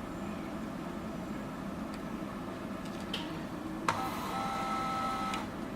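Steady machine hum of bench equipment, then a sharp click about four seconds in followed by a steady electronic tone of several pitches lasting about a second and a half.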